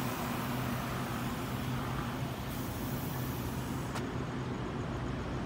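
Taiwan Railway EMU800 electric multiple unit pulling out past the platform, its cars rolling by with a steady low electric hum and wheel-on-rail noise.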